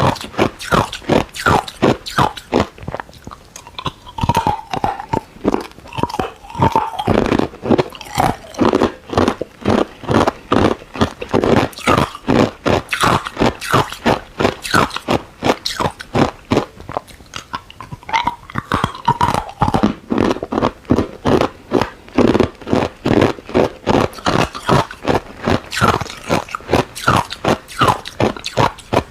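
Ice being crunched and chewed between the teeth in a steady, fast run of sharp crunches, about three a second, recorded close to the mouth.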